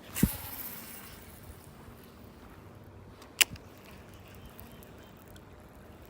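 Casting with a spinning rod: a sudden swish and line running off the reel, fading over about a second, then a single sharp click a few seconds later.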